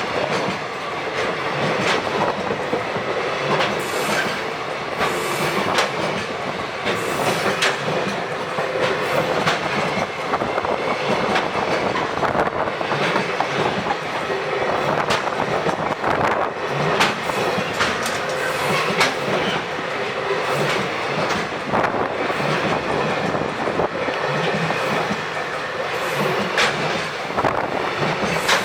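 Freight train rolling past, its wagon wheels clicking over rail joints in an unbroken run of clatter.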